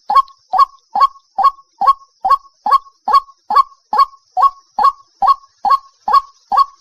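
White-breasted waterhen (dahuk) calling: a short, hoarse note repeated evenly, about two and a half times a second, the monotonous call used to lure the bird.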